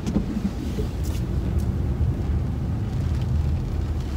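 Car moving slowly while pulling into a parking space, heard inside the cabin as a steady low rumble, with a few light clicks.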